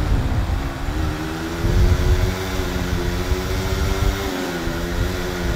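Dirt bike engine running under way, its pitch rising and falling a few times with the throttle over a deep, steady rumble.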